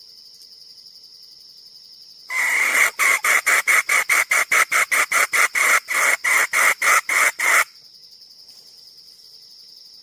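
Red junglefowl hen calling: a loud run of about twenty clucking notes, roughly four a second, starting about two seconds in and cutting off sharply before the end. A steady high insect drone sits under the quieter parts.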